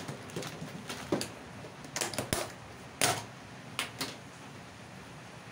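Plastic instant-noodle packet crinkling and clicking as it is handled and set down on the stovetop, in a handful of sharp crackles, the loudest about three seconds in, over the steady hiss of a lit gas burner.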